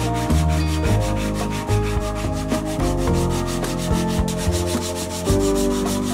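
Hand sanding with a sanding pad on the layered plywood edge of a fretwork ornament held in a vise: quick back-and-forth rubbing strokes. Background music with a bass line plays underneath.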